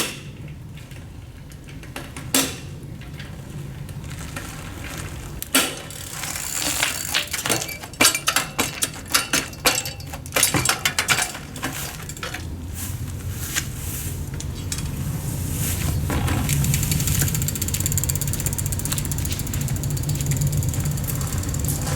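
Street-trials bicycle making mechanical noise: scattered sharp clicks and knocks, with a quick run of rattling clicks in the middle, then a steady low rumble in the second half. The noise comes from the bike's faulty bottom bracket area.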